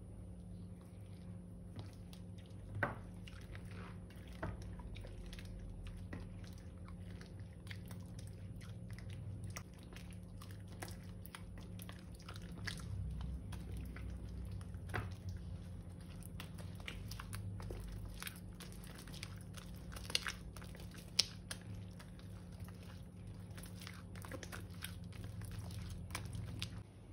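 Slime being worked by hand, squished and stirred, with many small wet crackles and clicks and a few sharper snaps, over a steady low hum.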